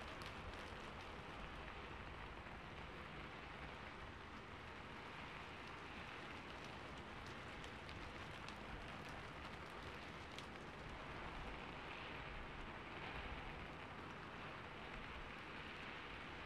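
Pen tip scratching across paper while writing a signature: a faint, even scratchy noise that swells with the strokes, with a few light ticks.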